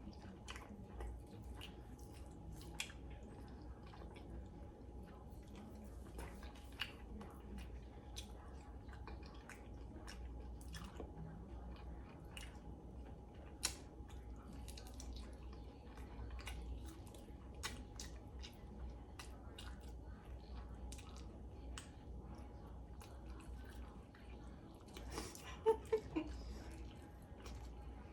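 A person chewing and biting into saucy chicken wings close to the microphone: irregular soft wet clicks and smacks, with a few louder ones near the end, over a faint steady hum.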